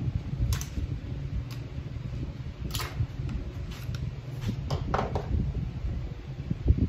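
Bowstring strand being laid out on a string jig, the thread spool and string handled around the posts: a few sharp clicks and taps and a brief falling squeak about five seconds in, over a steady low rumble.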